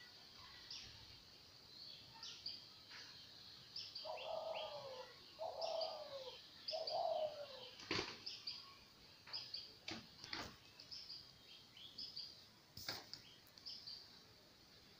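Small birds chirping with many short, high notes. About four seconds in, a dove gives three falling low coos in a row. A few sharp clicks come in the second half.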